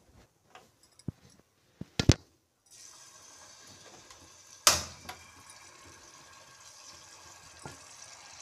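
A marinated chicken drumstick goes into hot butter and oil in a frying pan and starts a steady sizzle a little under three seconds in. Sharp knocks come at about two seconds and again near five seconds.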